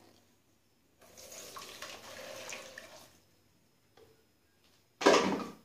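Blended lemon-and-water juice poured from a blender jar into a mesh strainer over a bowl, an even splashing pour lasting about two seconds. A short, much louder burst of noise follows near the end.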